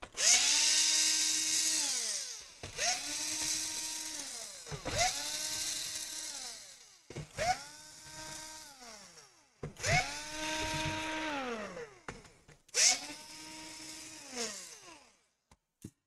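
Electric screwdriver backing out laptop case screws: six short runs, each spinning up quickly, holding a steady whine, then winding down.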